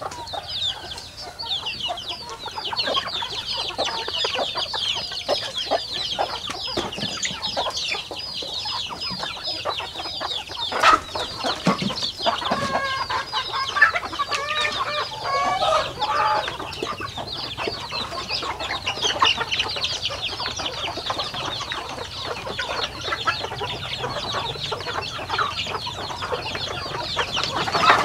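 A flock of chickens clucking and calling, over a continuous stream of short, high, falling peeps from chicks. A louder run of lower calls from the adult birds comes around the middle.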